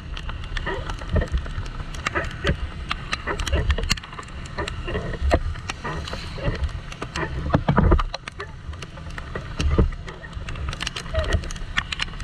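Raindrops striking the camera housing in irregular sharp clicks, with wind gusting over the microphone in heavy low thumps, on a motorcycle riding through rain on a wet road.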